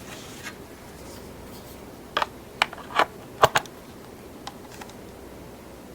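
Sharp plastic clicks and taps as a phone is seated on the Lightning dock of a Sony ICF-C11iP clock radio: four close together around the middle, then two faint ones.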